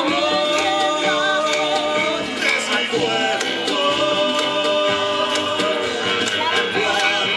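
A song from a stage musical performed live: singing voices over instrumental accompaniment, amplified through the stage sound system.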